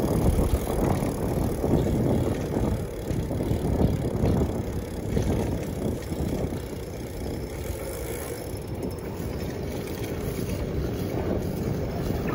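Gravel bike riding along a paved street: a rushing noise of wind over the microphone and tyres on the road, a little louder at first and easing slightly around the middle.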